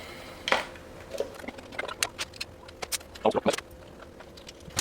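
Irregular clicks, light knocks and brief scrapes of parts being handled: an electric dirt bike's controller and wiring harness being pushed up into a tight fit in the frame.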